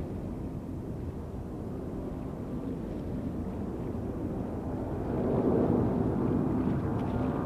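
Boeing 747-400D's four turbofan engines at takeoff thrust as the jet climbs out: a steady low rumble that grows louder about five seconds in as the aircraft comes closer.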